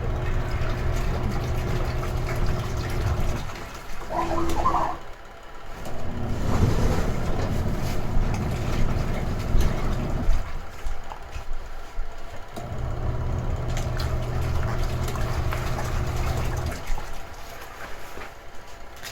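Retro-style washing machine running its wash: the motor hums in spells of about four seconds, stopping briefly between them and starting again, three times over.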